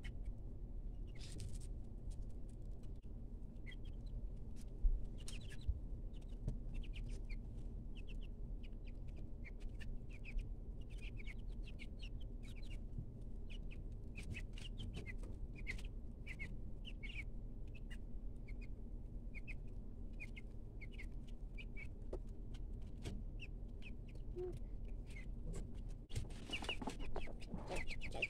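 Two-week-old chicks peeping in a brooder: short high peeps scattered throughout over a low steady hum. The peeping grows busier and louder near the end.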